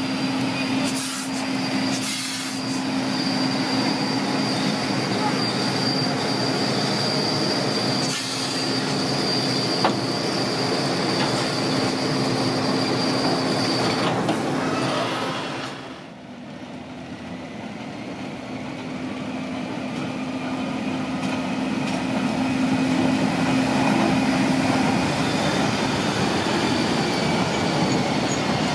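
Rhaetian Railway historic electric locomotive no. 414 running past with a steady low hum and a high, steady wheel squeal through the first half. After a brief dip about halfway through, the rolling rumble of the wooden van and historic coaches passing builds up.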